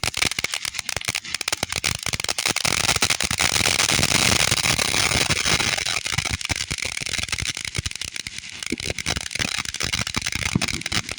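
A ground firework fountain spraying, a loud steady hiss filled with dense crackling that starts suddenly and dies down at the end, after about eleven seconds.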